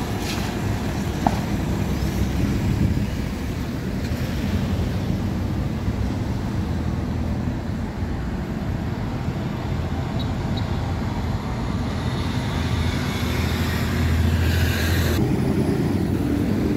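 Road traffic running steadily, with a louder low rumble from a passing vehicle near the end.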